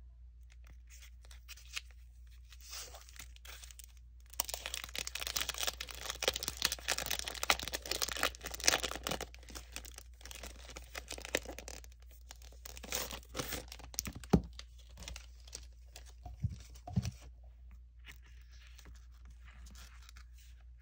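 Clear cellophane sleeve crinkling and rustling as hands open it and slide out a sticker book and sticker sheets, busiest in the first half, followed by lighter paper handling with a few sharp taps.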